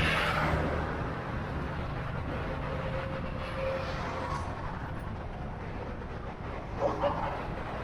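Light road traffic: a steady low rumble of engines and tyres from a few cars and motorbikes on a wide road, with a vehicle passing close at the start. A brief, sharper sound comes about seven seconds in.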